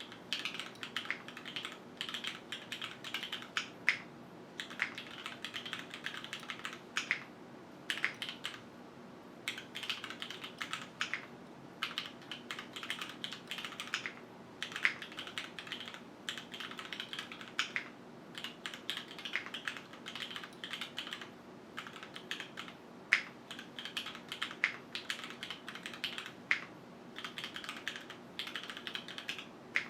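Continuous typing on a QwertyKeys Neo 65 mechanical keyboard with Cherry HyperGlide Black linear switches, an aluminium plate, gasket mount and no foam: fast runs of key clicks broken by brief pauses, with a few louder strokes.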